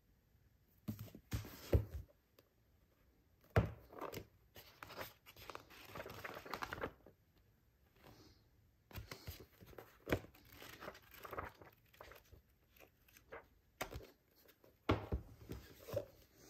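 Paperback manga volumes handled on a wooden desk: pages flipped and riffled with papery rustling, and several soft knocks as books are picked up and set down on the tabletop.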